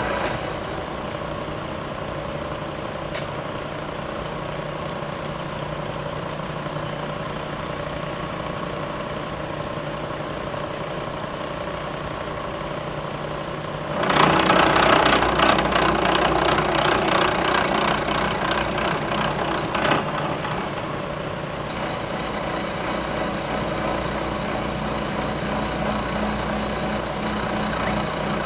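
Vertical milling machine spindle running with a steady hum while a face mill cuts a bronze bar. About 14 seconds in, the cut gets much louder, a rapid chattering of the cutter biting and throwing chips for about six seconds, with a falling whistle near its end; then it settles back to the steady spindle hum with faint falling whistles.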